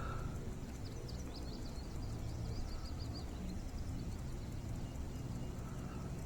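Low steady rumble of wind on the microphone, with a small bird's quick high chirping trill faintly over it from about half a second to three seconds in.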